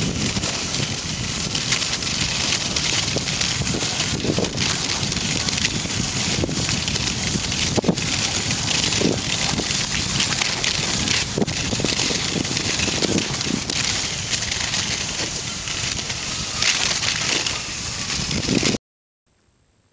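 Skis sliding and scraping over crusty snow on a fast downhill run, with wind rushing over the microphone. The noise cuts off suddenly about a second before the end, leaving near silence.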